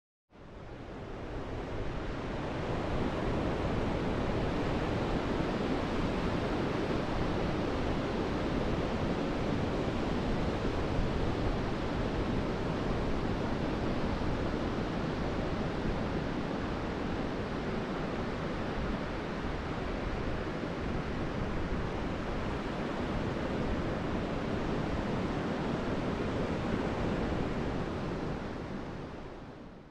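Steady rushing wash of ocean surf breaking on a sandy beach, fading in over the first few seconds and fading out near the end.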